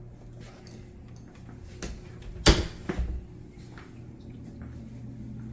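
Wooden pantry door pushed shut: one sharp bang about two and a half seconds in, a lighter knock just after, and a few soft clicks before it.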